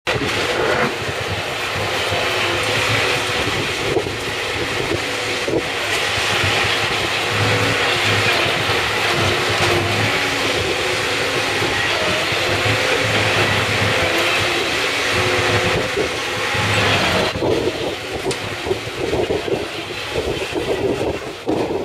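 Tracked mobile shredder running steadily and chewing up scrap tyres, with a continuous mechanical din over a low diesel hum from the machines. The din eases a little a few seconds before the end.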